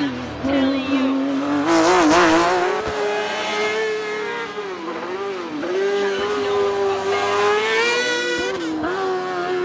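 Racing car engine revving hard through a tight hairpin, its pitch rising and dipping as the driver lifts off and changes gear. There is a sharp climb in revs about two seconds in, and another one near the end.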